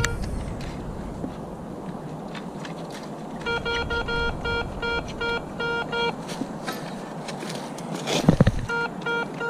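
Metal detector beeping on a buried metal target in short, even pulses, about four a second, in two runs. Between them come small scraping clicks and one louder thump of digging in the soil.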